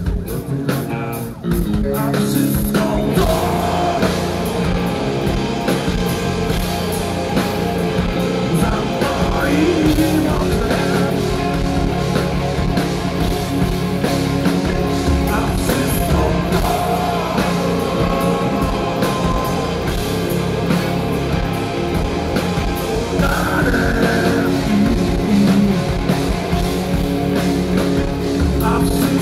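Loud rock music: electric guitars, bass and drums with a singer. It comes in at full level about a second and a half in and stays dense and steady.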